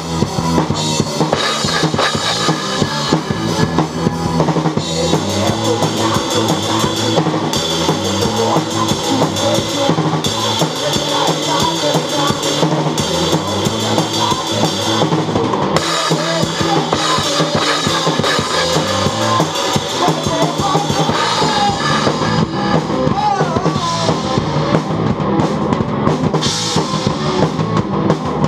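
Acoustic drum kit played hard in a rock groove, with kick drum, snare and cymbals, over a rock song with guitar and bass.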